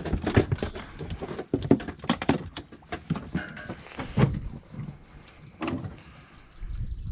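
A run of knocks and clatters from handling gear and fish in an aluminium jon boat, busy for the first four seconds or so, then sparser with one last knock near six seconds.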